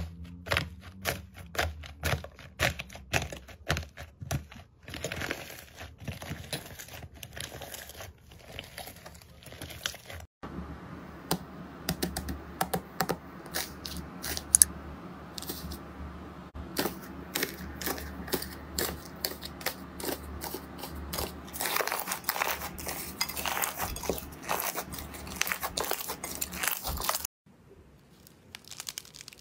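Crisp crackling and crunching of hardened slime and dried clay crust being broken and peeled apart by hand, a fast run of small snaps. It comes in separate stretches that cut off abruptly about ten seconds in and again near the end.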